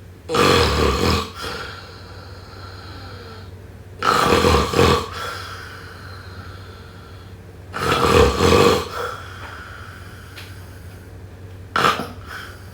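A person snoring: three loud snores about four seconds apart, each trailing off into a softer breath, then a shorter, sharper snore near the end.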